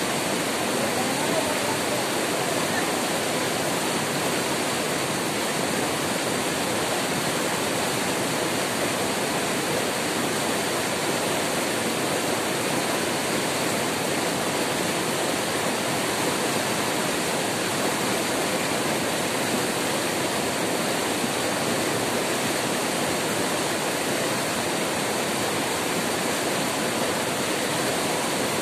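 White-water river rapids pouring over boulders: a steady, unbroken rush of water.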